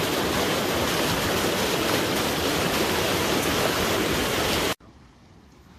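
Mountain stream rushing over rocks: a loud, steady rush of water that cuts off abruptly about five seconds in, leaving a much quieter hiss.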